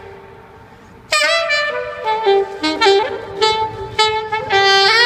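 Alto saxophone played solo. A note's echo fades away, then about a second in a lively phrase of short, quick notes begins, ringing in a concrete parking garage.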